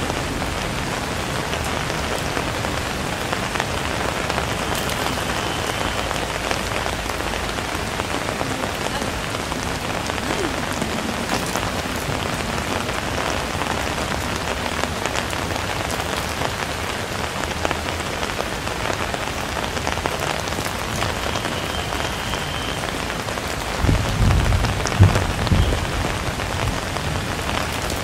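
Steady rain falling, with a low rumble for about two seconds near the end.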